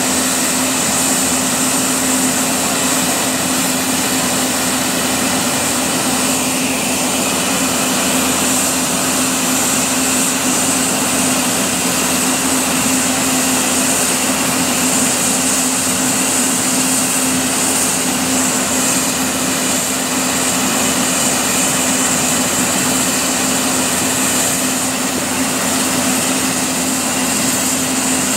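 Compressed air hissing steadily from a leaking unloader (UL) valve under a locomotive, over a steady machinery hum. The leak has cut off the locomotive's tractive effort and halted the train.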